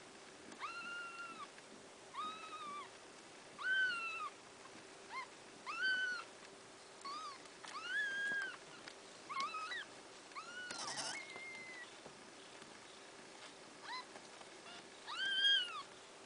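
Newborn kittens mewing while they nurse: a string of high, thin cries, each under a second, some drawn out and arching, others short chirps, the loudest near the end. A brief rustle comes between cries a little past the middle.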